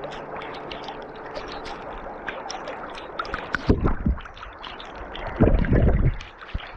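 Shallow mountain river water flowing and gurgling over stones right at the microphone, with loud splashing and low sloshing about three and a half seconds in and again around five and a half to six seconds as water washes over the camera.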